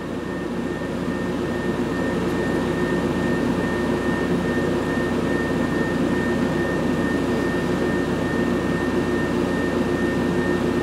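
Early-1980s Whirlpool refrigerator compressor running steadily, a low hum with a thin high whine above it, growing a little louder over the first couple of seconds. It starts and keeps running on a newly fitted replacement start relay and overload, so the relay was the fault.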